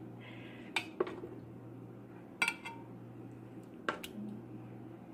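A spoon knocking and clinking against a cooking pot as the cooked adobo is scooped out: about six sharp clicks in three quick pairs, over a steady low hum.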